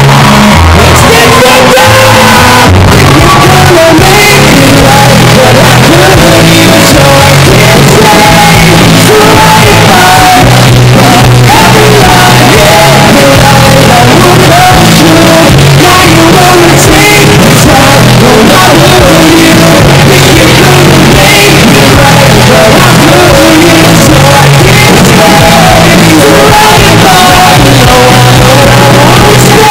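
Rock band playing live through a PA: shouted lead singing over electric guitars and bass, recorded so loud that the level stays pinned at full scale.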